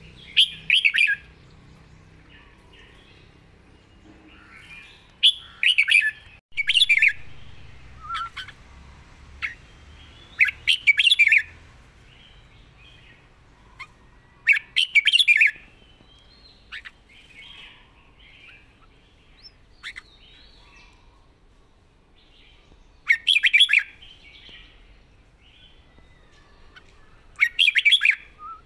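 Red-whiskered bulbul singing short, loud whistled phrases, about seven in all, with pauses of a few seconds between them.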